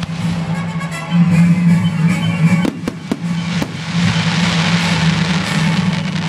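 Music playing under aerial fireworks: three sharp bangs near the middle, then a crackling hiss as a shell's stars spread out.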